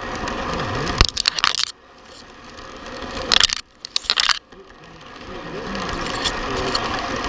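Electric model train running on its track, a steady mechanical rattle of motor and wheels on rail, with two loud bursts of clattering scrapes, about a second in and again around three and a half seconds in.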